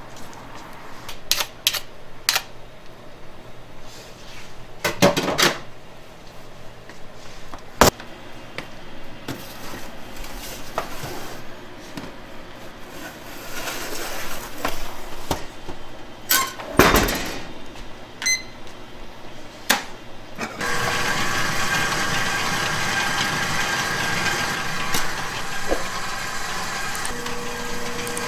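Bakery kitchen work: scattered knocks and clatter of metal baking trays and utensils. About two-thirds of the way through, a steady machine hum with a few whining tones starts and keeps running.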